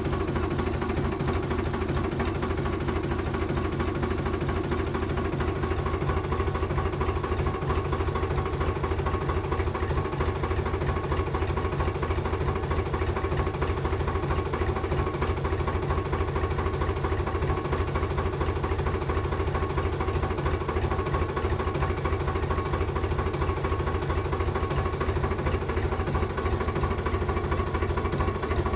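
Small motor of a miniature model machine running steadily, with a fast, even pulse and a steady whine.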